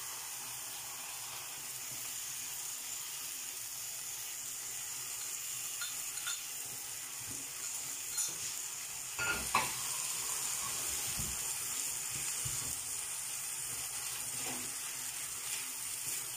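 Mince beef and onions sizzling steadily in a frying pan as a chili con carne seasoning sauce is poured in and stirred, with the spatula scraping and knocking against the pan a few times from about halfway through.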